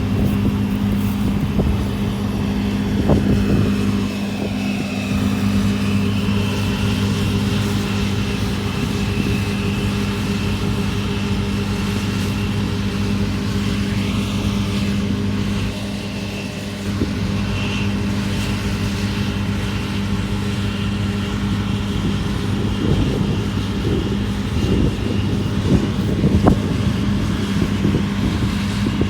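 Engine of pea-harvesting farm machinery running steadily at a constant speed, with occasional knocks and rattles.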